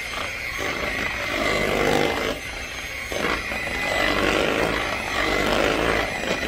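Electric mixer running, its beaters working through a block of cream cheese in a bowl. The motor is steady with a high whine, and the churning swells and dips as the beaters catch the cheese.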